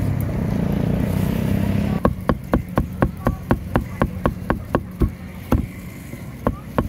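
Meat cleaver chopping grilled pork on a chopping block: rapid, even strikes about four a second start about two seconds in, then slow to a few single chops near the end. Before the chopping there is a steady low rumble.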